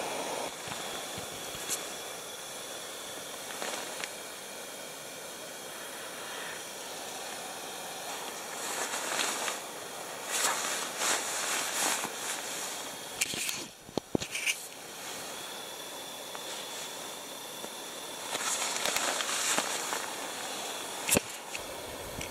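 Steady hiss of a gas burner under a lidded cooking pot. Over it come several bursts of plastic-bag and paper rustling, and a couple of sharp clicks near the middle and the end.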